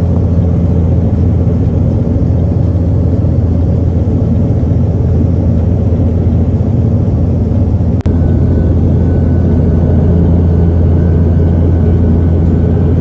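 Steady cabin drone of an airliner in flight, heard from a window seat, with a strong low hum. About eight seconds in it breaks off for an instant and resumes unchanged.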